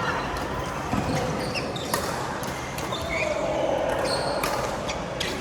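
Badminton rally: several sharp racket hits on the shuttlecock, a second or more apart, over the busy background of play on the court.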